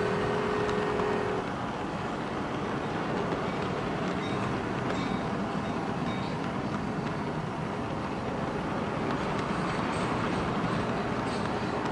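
O gauge model freight train rolling past close by, a steady rumble of metal wheels on the rails and clicking at the rail joints. A horn sounding two notes together stops about a second and a half in.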